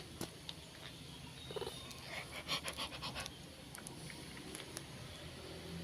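An animal panting in short, quick breaths, with a fast run of them about two and a half seconds in.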